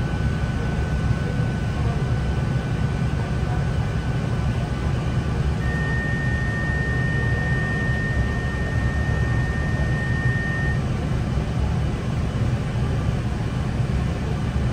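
Interior of an NI Railways Class 3000 diesel multiple unit running: a steady low engine and running-gear rumble with a haze of noise over it, and a thin high whine that comes in about six seconds in and stops about five seconds later.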